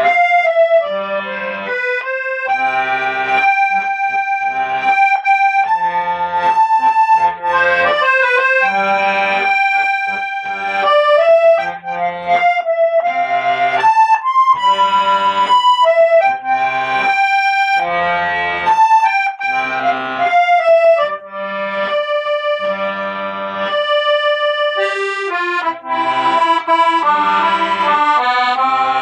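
Accordion playing a melody of held notes over short, evenly repeated bass chords beneath it.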